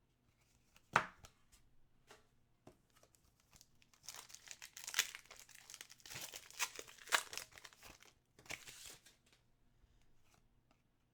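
Trading card pack wrapper being torn open and crinkled, with a sharp click about a second in and a dense stretch of crinkling and tearing from about four seconds to nine seconds.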